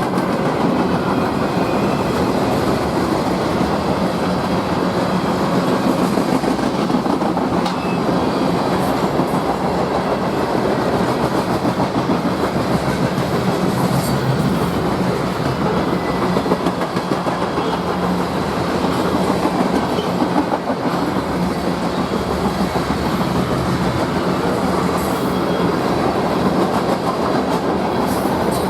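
A train rolling past close by, its cars going by steadily with a continuous rumble of wheels on rail.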